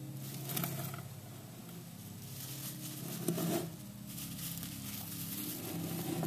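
Russian dwarf hamster scrabbling and rustling about in his cage: irregular small scratches and crinkles, with the loudest flurry about halfway through.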